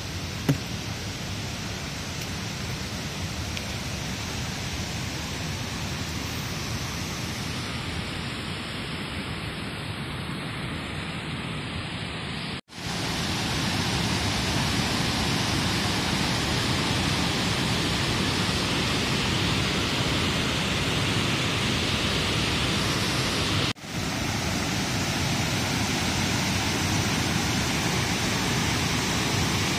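Steady rushing water, a continuous even noise with no pitched sound in it. It drops out briefly twice, about 13 and 24 seconds in, and is louder after the first break.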